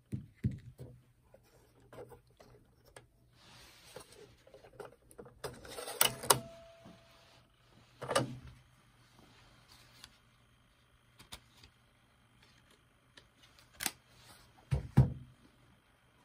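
Scattered clicks and knocks, with a scraping rustle a few seconds in, from hands working on the opened stereo's CD mechanism and drive belt, over a low steady hum.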